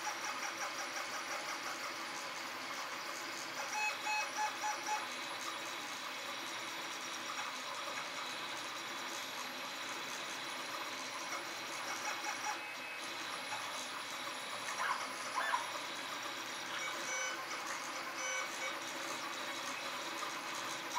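Ord Bot 3D printer at work: its stepper motors whirr and sing in short repeated tones that shift in pitch as the print head moves back and forth laying down plastic.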